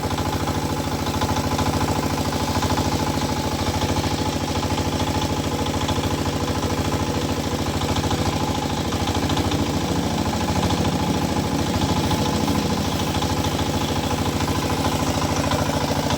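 Tractor's diesel engine idling steadily, with an even run of firing pulses.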